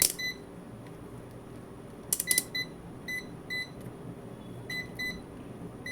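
Digital multimeter giving short, high-pitched beeps, about six, spaced irregularly over a few seconds. A quick cluster of sharp clicks about two seconds in.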